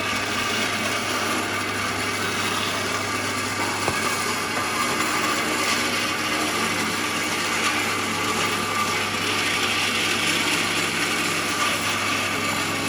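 An electric power tool running steadily as it works wood, with one short click about four seconds in.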